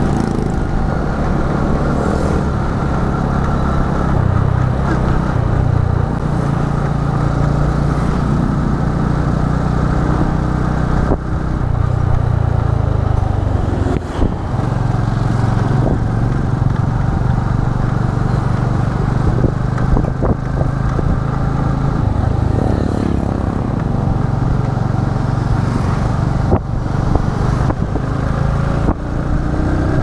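Motor scooter's engine running steadily while ridden through town, its pitch shifting up and down as the throttle changes, with a few short clicks and knocks.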